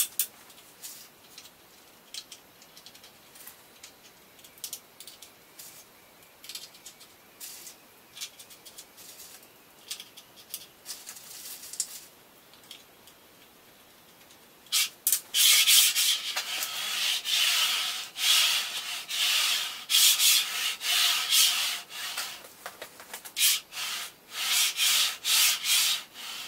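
Small metal parts and tools clicking and tapping during hand assembly of a CNC gantry, then, about halfway in, a louder run of rubbing, scraping strokes, each about a second long with short breaks, as the gantry is worked by hand.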